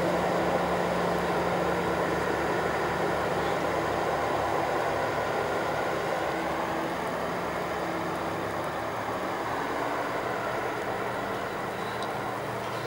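Train pulling away along the track, a steady running noise with a low hum that slowly fades as it recedes.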